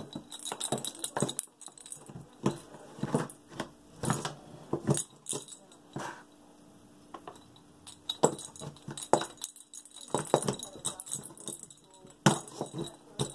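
A cat batting a dangling string toy from inside a cardboard box, making irregular knocks, taps and rustles as its paw hits the cardboard and the toy.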